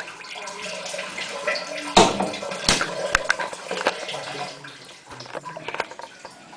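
Water splashing and trickling, with sharp clatters about two and three seconds in.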